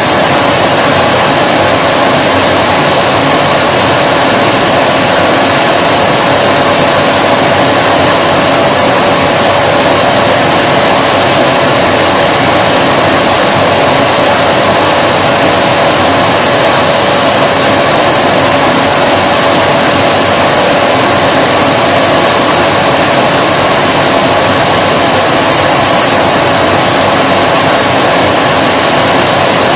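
Vacuum cleaner running steadily: a constant motor whine over a loud rush of air, unchanging throughout.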